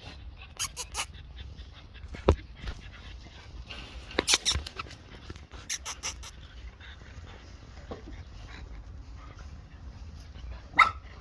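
Brittany spaniel puppies whimpering and yipping now and then, with a short pitched yelp near the end, among scattered sharp clicks and knocks.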